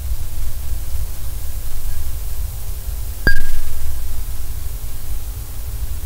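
Red ramshorn snail's rasping tongue scraping the inside of a small glass light-bulb globe, picked up as vibration of the glass: one sharp click a little past halfway that rings briefly at the globe's own pitch, with a much fainter ping about a second before. A steady low rumble lies underneath.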